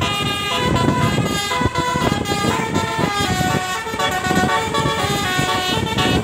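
A bus's telolet basuri multi-tone horn playing a continuous tune, the held notes stepping from pitch to pitch every half second or so, over a low rumble.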